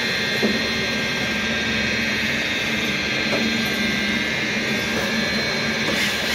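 Steady hum and high multi-tone whine of running workshop machinery, unchanging throughout.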